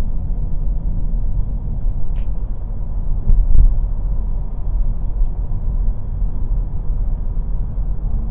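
A car's steady low road and engine rumble heard from inside the cabin while driving at country-road speed, with a brief louder bump about three and a half seconds in.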